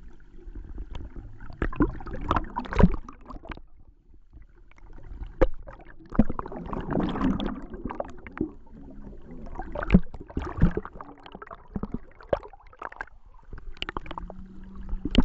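Water heard from underwater as paddle strokes churn it: bursts of gurgling bubbles coming and going, with sharp knocks at irregular intervals.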